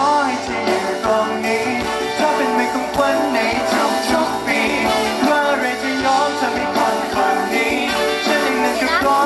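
A man singing live into a microphone over a rock band, with electric guitar among the instruments.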